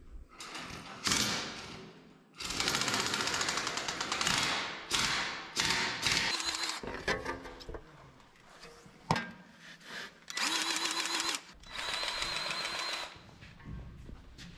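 Power tools running in several short bursts, each about one to two seconds long with pauses between. The last bursts carry a steady whine and come from a cordless grease gun pumping grease into fittings.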